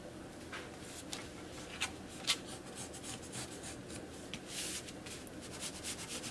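Soft scratching of a marking pencil tracing around the edge of a paper pattern laid on fabric, with a couple of light taps about two seconds in.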